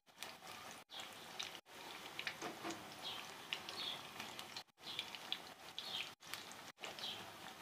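Pakora batter deep-frying in hot ghee in a kadhai: a steady sizzle with scattered crackles and pops, broken by a few brief silent gaps.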